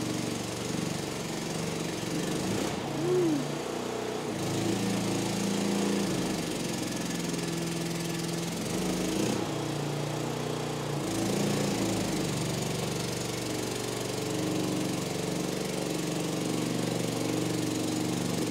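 Mini skid steer's newly fitted small engine running while the machine is driven about, its pitch stepping up and down repeatedly as the revs and load change.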